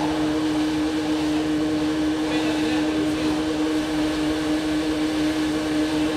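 Motor-driven water pump running steadily with an even hum, drawing floodwater out through a thick suction hose.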